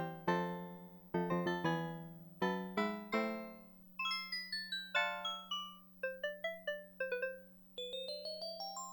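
Kawai FS640 arranger keyboard demonstrating its sounds: struck chords and notes in a piano or electric-piano voice, then from about four seconds in a higher, brighter voice playing quick single notes. A steady low hum sits under the notes.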